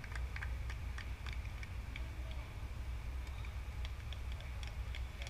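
Outdoor background noise: a steady low rumble with scattered light ticks and clicks at irregular times, over a faint steady high tone.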